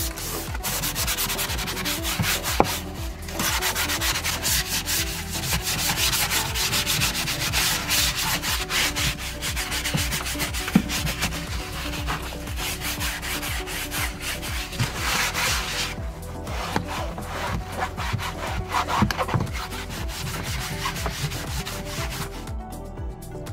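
A brush scrubbing hard against a surface in quick, rapid strokes, stopping shortly before the end.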